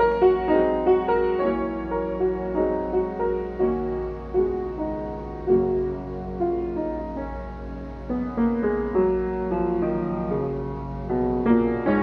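Unrestored Mason & Hamlin Model BB grand piano being played, with notes and chords struck one after another in a flowing piece.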